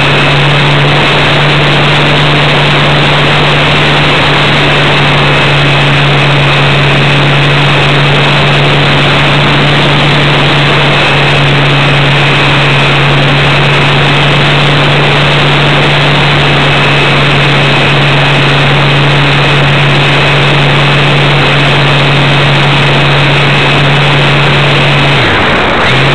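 Motor and propeller of an RC Super Cub model airplane, heard up close from a camera mounted on the plane, running loud and steady at a constant pitch with a thin high whine. Near the end the pitch dips briefly and then returns, a short throttle change.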